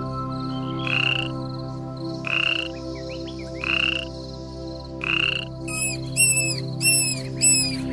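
Frogs calling: a short call repeated about every second and a half, then, about six seconds in, a quicker run of four higher calls that drop in pitch, over a steady low drone.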